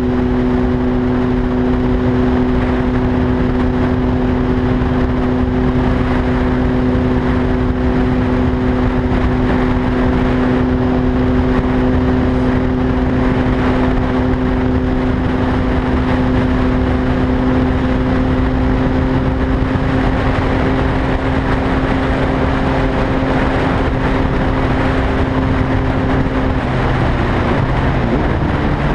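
A vehicle engine droning steadily under a rushing noise, its pitch dropping and shifting about a second before the end.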